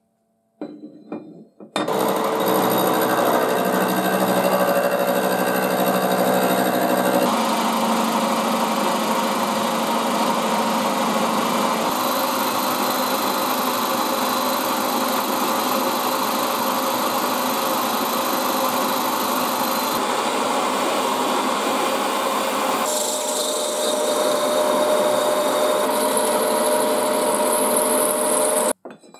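A milling machine runs and its cutter machines the steel parts of an old bench vise, a loud continuous whine with a few changes in tone; it stops suddenly near the end. There are a few light metal clinks of parts being handled in the first two seconds.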